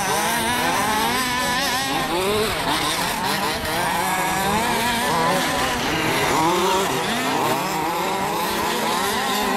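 Several large-scale RC off-road buggies racing, their small two-stroke petrol engines revving up and down with overlapping, constantly shifting pitches.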